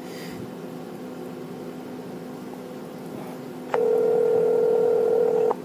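Telephone ringback tone through a phone's speaker: a single steady ring about two seconds long, starting about two-thirds of the way in, while the dialled number rings out at the far end. A faint low hum lies under the rest.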